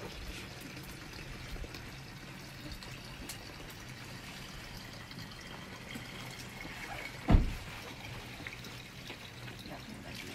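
Mountain spring water running steadily from a pipe into a plastic bottle as it fills. A single loud thump about seven seconds in.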